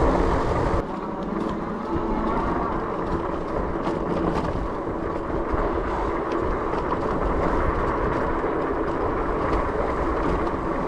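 Fat-tire electric bike rolling downhill over a rough dirt road: a steady rumble from its 26 x 4-inch tires, with rattles and sharp clicks as the bike jolts over the bumps.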